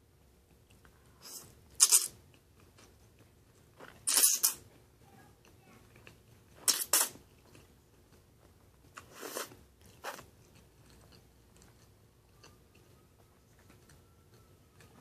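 Spaghetti being slurped up from a fork, four loud wet sucking slurps a couple of seconds apart, with quiet chewing between them.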